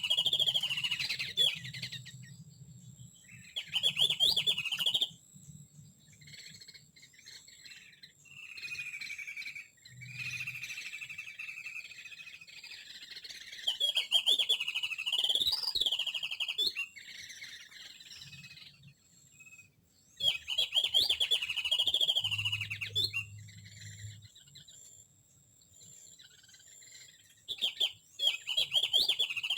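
Small songbirds' chattering calls: loud bursts of rapid, warbling high notes every few seconds, with softer calls and a steadier trill between them.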